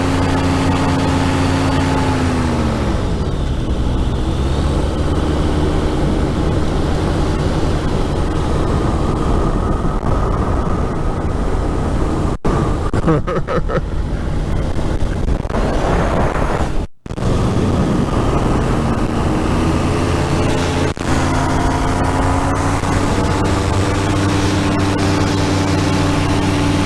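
Powered parachute's engine and propeller running in flight, with wind rush. The engine note drops about three seconds in as power is eased back, holds lower, then climbs again around twenty seconds in as power comes back up; the sound cuts out for an instant twice in the middle.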